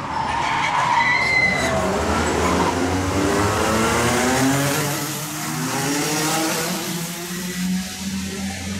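Racing kart engines screaming past, their pitch rising again and again as the karts accelerate out of a bend, with a brief tyre screech about a second in.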